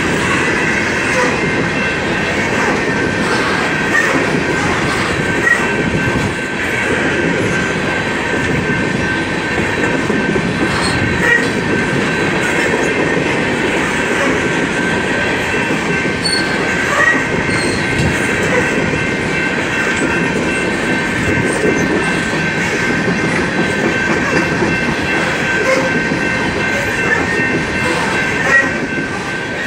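Coal train's hopper cars rolling past close by: a continuous heavy rumble and clatter of steel wheels on the rails, with scattered clicks and a faint, steady high squeal from the wheels underneath.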